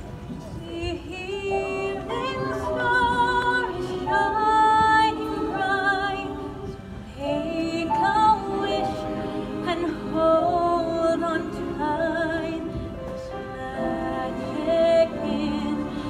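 A girl singing solo over music, long held high notes with vibrato.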